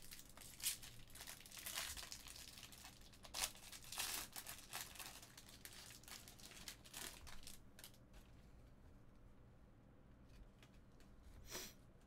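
Wrappers of 2018 Bowman baseball card packs crinkling and tearing as packs are opened, a run of soft crackles that thins out after about eight seconds, with one short crackle near the end.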